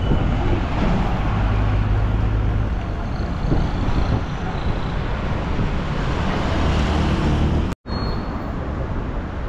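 City street traffic: a steady wash of engines and road noise, with the low hum of a nearby vehicle's engine in the first few seconds and again shortly before the sound briefly drops out near the end.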